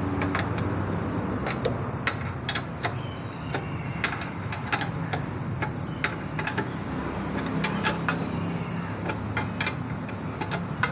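Irregular sharp metallic clicks of a spanner working the nuts of a motorcycle exhaust silencer, tightening it after a new washer has been fitted, over a steady low background hum.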